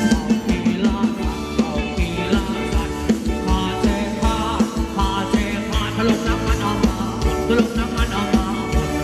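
Live band playing upbeat ramwong dance music: a drum kit keeps a steady beat under electric guitars and bass, with a voice singing over it.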